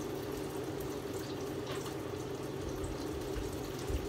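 Hot oil sizzling steadily as tilapia fries, with scattered small crackles over the hiss.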